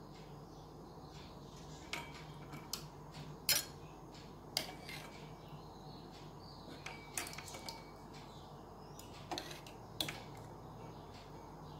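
Steel ladle clinking and scraping against a steel pot and a small steel bowl as thick payasam is ladled out, in scattered, irregular clinks.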